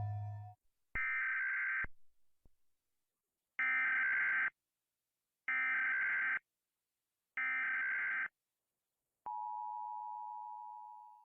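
Electronic emergency alert tone: four beeps, each just under a second long, about two seconds apart, followed by a single lower steady tone that fades away.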